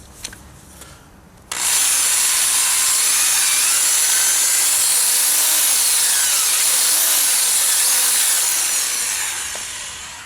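Electric drill spinning a Mothers headlight-kit attachment against the plastic headlight lens, a steady high whirring hiss. It starts abruptly about a second and a half in and tapers off near the end.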